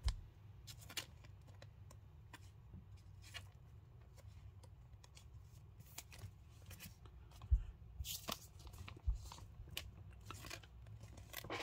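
Baseball trading cards being handled and laid down on a table: light scattered clicks and rustles, with a couple of soft knocks in the second half, over a low steady hum.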